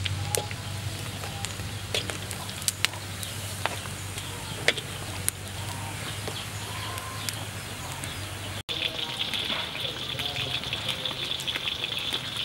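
Hot oil sizzling as battered squid deep-fries, with scattered sharp crackles. After a cut about two-thirds of the way through, the sizzle comes back denser and louder.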